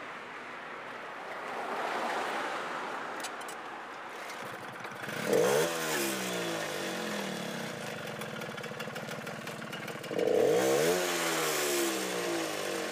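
Small pedal-start moped engine being started, then revved up sharply twice about five seconds apart, each time falling back to a steady idle.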